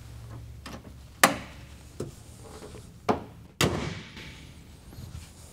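Car hood being closed on a 2001 Honda Prelude: a few sharp metal clicks and knocks as the prop rod is stowed and the hood comes down and latches, the loudest about a second in.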